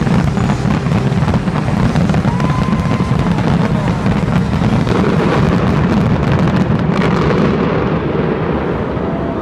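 Fireworks display going off in a dense volley: rapid overlapping bangs and crackling over a deep continuous rumble, thinning out over the last couple of seconds.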